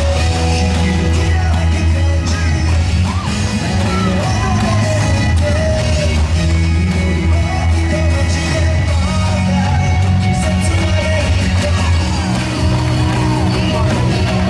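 Loud pop-rock dance music with a sung vocal over a heavy bass line, played for a cheerleading routine, with occasional yells.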